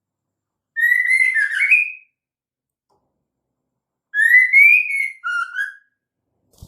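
Female white-rumped shama calling: two short whistled phrases of rising notes a few seconds apart, the second broken into two parts. This is the female's typical call, played to lure a male shama and get him singing.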